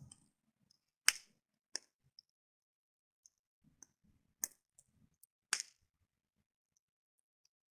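Campfire crackling: scattered sharp pops and ticks of burning wood, a few seconds apart, the loudest about a second in.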